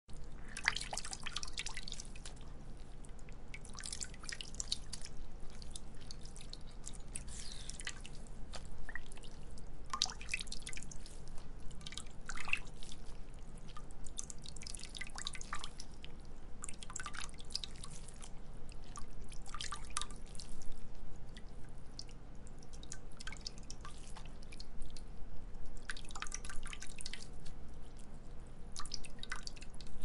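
Water dripping and splashing: irregular clusters of sharp drops every two to three seconds over a steady low background rumble.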